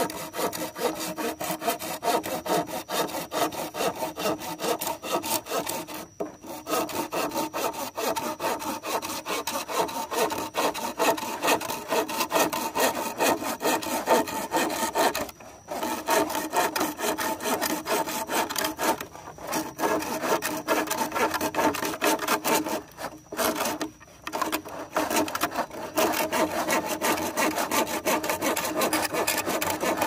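Hand saw cutting through a bamboo pole: quick back-and-forth strokes of the toothed blade rasping through the wood, kept up steadily with a few brief pauses.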